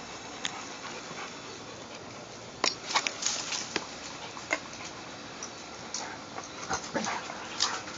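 A yellow Labrador and a boxer–rottweiler puppy at play, heard as scattered short, sharp sounds that start a little over two seconds in and go on irregularly.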